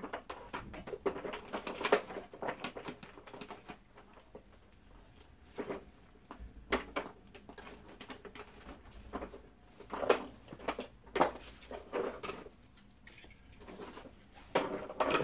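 Plastic attachments being handled and clipped onto a Hoover Smart upright vacuum cleaner: scattered, irregular clicks and knocks of hard plastic.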